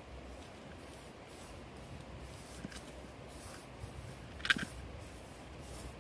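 Faint hand-kneading of flour dough for dumplings, over a low steady rumble, with one sharp click about four and a half seconds in.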